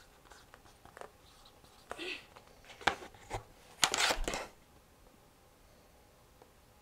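Hand-writing an answer: a few light clicks and taps, then a short scratchy scrape about four seconds in, followed by quiet room tone.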